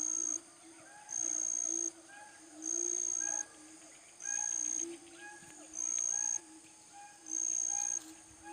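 Forest animal calls: a steady, high, pure tone that sounds in even pulses of about three quarters of a second, repeating roughly every second and a half, over a continuous chorus of lower calls.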